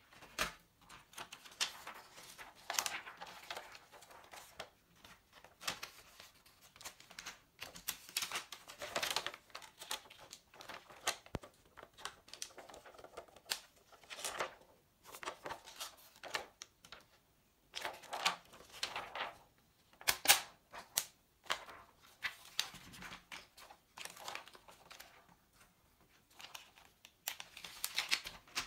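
Thin plastic membrane switch sheets of a keyboard crinkling and rustling as they are handled and lifted out, with irregular clicks and taps against the plastic keyboard case.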